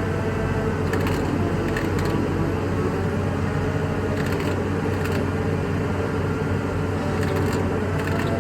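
Excavator engine running steadily, with a handful of irregular sharp knocks over it.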